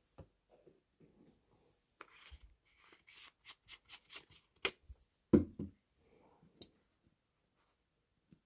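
Hands handling small tools and a model locomotive's metal chassis on a workbench mat: scattered clicks and rustles, with a louder knock about five seconds in.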